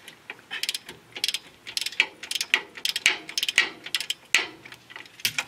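Long-handled socket ratchet turning a bolt on a car's front spindle: quick runs of pawl clicks on each return stroke, repeated every second or less.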